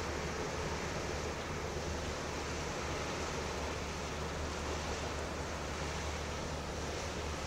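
Steady low hum with an even hiss over it from the cruise ship MSC Poesia's engines and ventilation machinery, unchanging throughout.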